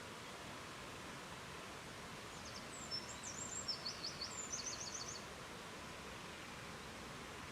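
Steady rushing noise of river water, with a small bird singing a quick burst of high, rapid chirps and trills from about two to five seconds in.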